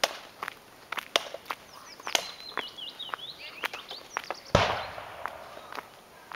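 Footsteps crunching on a dirt road, about two sharp steps a second. A small bird chirps a quick run of short, falling notes midway. About four and a half seconds in comes one sudden loud rushing noise that fades over a second.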